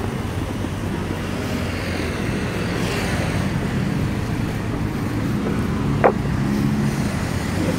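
Road traffic on a busy city street: cars and motorcycles running past in a steady rumble. A brief high squeak sounds about six seconds in.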